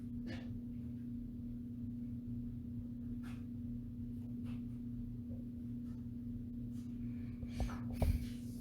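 A steady low electrical-sounding hum with a few faint clicks, and a slightly louder knock or two near the end.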